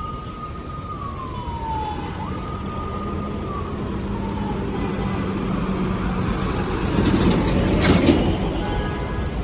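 A siren holding one high tone, then sliding down in pitch, jumping back up and sliding down again more slowly, over steady road traffic noise. A louder rushing noise with a sharp crack swells about seven to eight seconds in.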